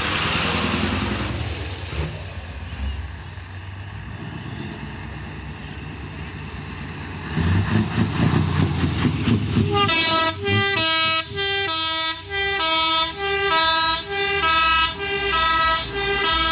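Heavy trucks driving past, their diesel engines loudest about seven seconds in; from about ten seconds in a truck's air horns sound a rhythmic series of short blasts, about two a second, at changing pitches.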